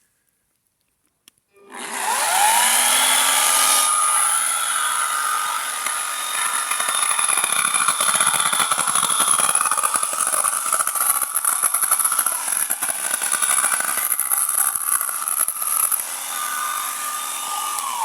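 Small electric chainsaw starting about two seconds in with a rising whine, then running steadily as it cuts into wood, and winding down at the very end.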